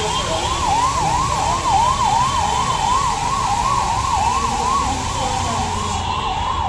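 Electronic warning siren warbling quickly, its pitch sweeping up and down about three times a second, over a steady low machine rumble.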